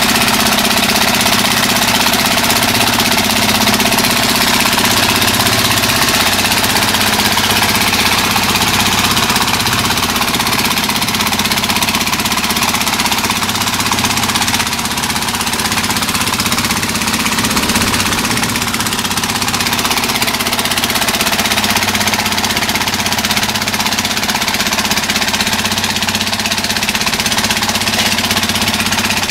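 Small engine running steadily at an unchanging speed, with a rattly knock and a loud rushing hiss over it.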